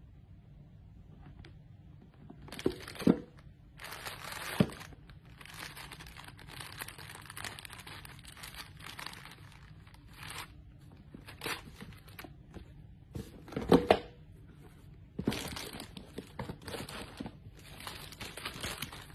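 Plastic packaging crinkling and rustling in irregular bursts as sneakers and a clear bag of spare laces are handled in a shoebox, with a few sharp knocks standing out as the loudest moments.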